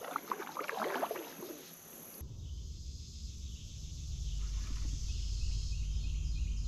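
For about two seconds, light, irregular splashing and dripping of water off a kayak paddle. Then a steady low wind rumble on the microphone, with insects chirping faintly and high above it.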